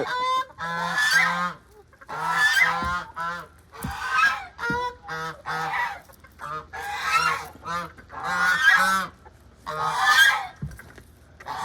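Domestic geese honking in repeated bursts, several calling over each other as they crowd the feed bucket, with a few short knocks in between.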